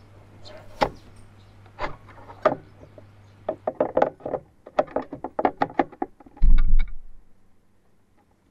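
A new air filter's plastic-framed element being fitted and pressed down into a plastic airbox: scattered knocks, then a quick run of clicks and knocks as it is pushed into place, ending in a loud dull thump.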